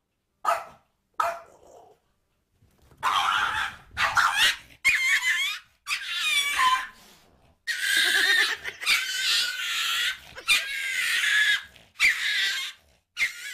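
A dog crying out: two short sounds in the first two seconds, then from about three seconds in a string of loud, high-pitched cries, each up to about a second long, rising and falling in pitch.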